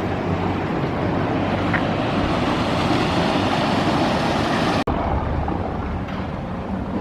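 Steady city street din with engine rumble from passing vehicles. The sound cuts out for an instant a little past halfway and picks straight up again.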